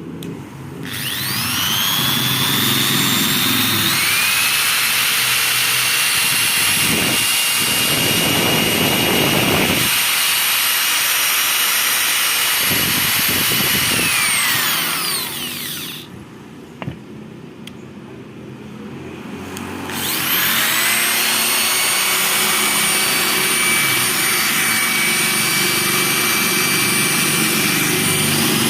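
Skil 6538 6 mm corded electric drill (300 W, variable speed) running with no load: a high motor whine that spins up, runs steadily, winds down about halfway through, then starts up again after a few seconds' pause. It runs fairly smoothly for a long-unused drill from old stock.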